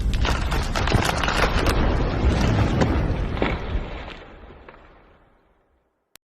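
A loud, dense rumble crackling with many sharp impacts, fading out smoothly over the last couple of seconds into complete silence, then one sharp click near the end.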